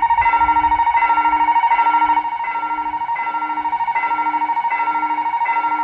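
Railroad crossing warning bell ringing: an electronic ding repeats about every three quarters of a second over a fast-warbling steady tone, signalling an approaching train as the barrier arms come down.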